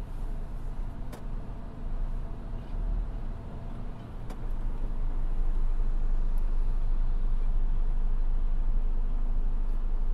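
Heavy diesel machinery running with a steady low drone, growing louder about halfway through and then holding steady.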